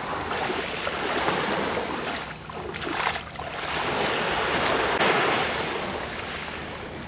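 Small Black Sea waves washing onto the shore and water splashing around legs and feet as people wade through the shallows, in a rushing sound that swells and eases.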